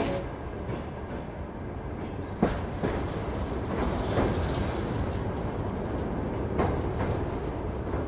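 Train running on rails: a steady rumble of the carriages with several sharp clacks of the wheels passing over rail joints.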